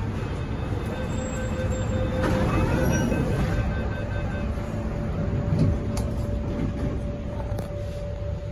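Inside a Hyundai Rotem electric multiple unit (MTR K-Train): a steady electrical hum and rumble from the train, with the passenger doors sliding shut about two to three seconds in.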